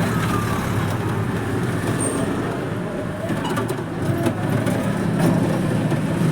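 Steady running noise of a vehicle moving through road traffic, a constant low rumble, with a brief high chirp about two seconds in.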